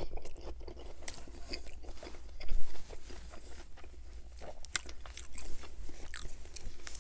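Close-miked chewing of a mouthful of Burger King Whopper Jr., with soft crunches and wet clicks throughout. A louder thump comes about two and a half seconds in, as the burger is set down on the table.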